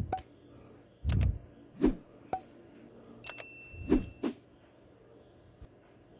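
Plastic clicks and light knocks of a jet flame lighter's housing, gas tube and wire being handled and pressed into place: about seven separate taps in the first four and a half seconds, then quiet handling.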